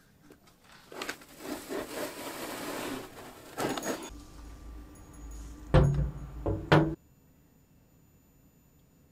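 Handling noise as a model V8 engine is lifted out of the foam insert of a wooden box: about two seconds of foam scraping and rustling, a sharp knock, then a low rumble with two heavy thumps that cuts off suddenly.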